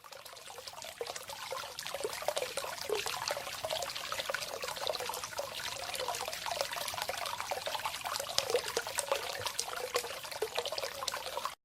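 Hot spring water flowing and trickling in a steady splashing stream that fades in over the first second or two and cuts off suddenly near the end.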